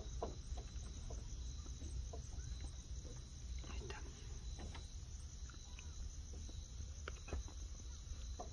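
Crickets chirping steadily, with a low rumble underneath and a few faint clicks.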